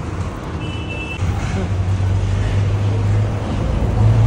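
Street traffic: a vehicle engine's low rumble that swells about a second in, with a short high beep near the start.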